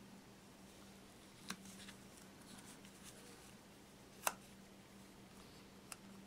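Faint handling sounds of fingers pressing tape onto a porcelain figurine piece: three small, sharp clicks, the loudest about four seconds in, over a steady low hum.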